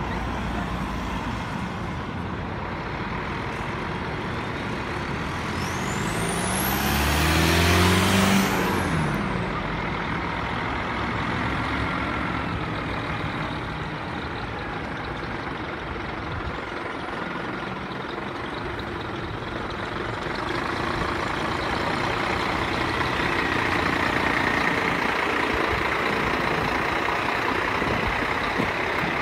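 Scania heavy recovery truck's diesel engine running as it tows a single-deck bus, the engine note rising and falling about seven to eight seconds in, its loudest point. It gets louder again in the last third as the truck and bus draw close.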